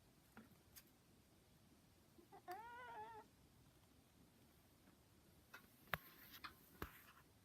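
A house cat meows once, a short call of under a second that rises and then wavers, asking to have the door opened. A few light clicks and taps come before it and more a few seconds after.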